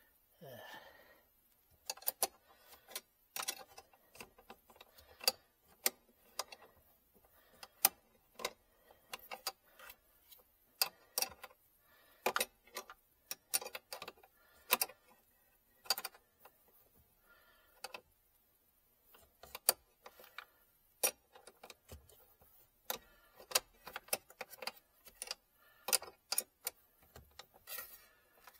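Small metal wrench clicking and tapping on a car battery's terminal clamp bolts as they are tightened: scattered sharp metallic clicks, irregular and in short clusters, with brief pauses.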